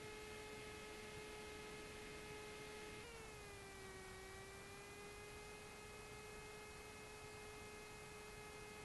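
Faint steady electrical whine in a Cessna 172's intercom audio: a single tone with overtones that dips in pitch about three seconds in and eases back up to its earlier pitch.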